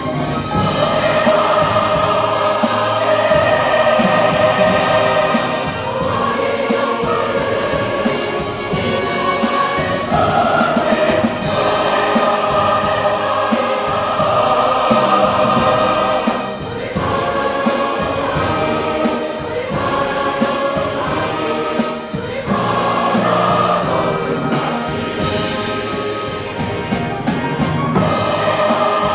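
A large mixed choir singing a sacred anthem, full and sustained, with instrumental accompaniment.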